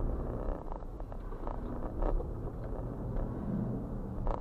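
Dashcam recording of a car's cabin as it drives over a railroad grade crossing: a steady low road and engine rumble, with a few knocks as the tyres cross the rails, the sharpest near the end.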